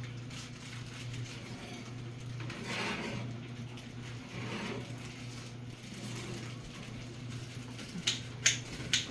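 A metal cake pan being slid onto a wire oven rack, with soft scraping and handling sounds over a steady low hum. A few sharp clicks come near the end.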